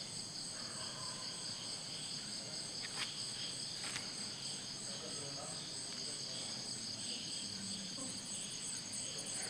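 Night insects chirping steadily in a continuous high-pitched chorus at several pitches, with a couple of faint clicks about three and four seconds in.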